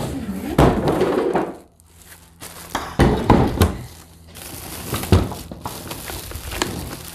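Plastic packaging crinkling and rustling while a trolling motor is unwrapped on a tabletop, with irregular knocks and thunks as its parts are handled and set down, one sharp knock about five seconds in.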